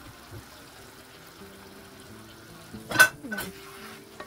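Egg and tomato-sauce stew cooking in a pan with a faint sizzle, and a utensil knocking against the pan about three seconds in, once loudly and once more softly just after.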